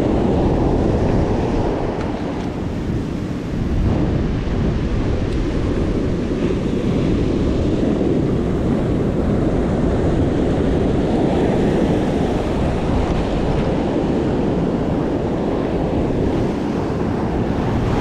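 Ocean surf washing onto the beach, with wind buffeting the microphone: a steady, loud rush that stays much the same throughout.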